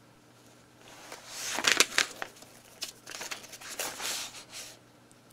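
Sheets of paper rustling and crinkling as a stack of papers is leafed through by hand, in irregular bursts starting about a second in and stopping shortly before the end.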